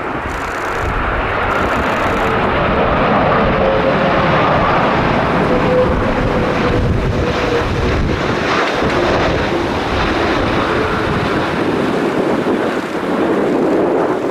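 Airbus A330 jet engines passing low over the runway: a loud, steady noise that swells a couple of seconds in, with wind on the microphone.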